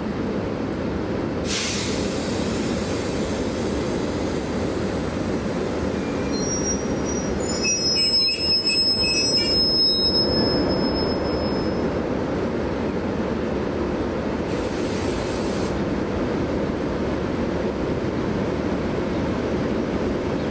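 A train moving through the station with a steady rumble, its wheels squealing high on the rails for a few seconds in the middle. Two short hisses come through, one near the start and one about three quarters of the way through.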